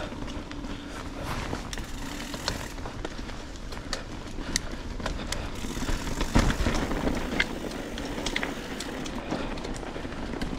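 Mountain bike riding over rough trail: a steady rumble of tyres on the ground with frequent sharp rattling clicks from the bike, and a louder jolt about six seconds in.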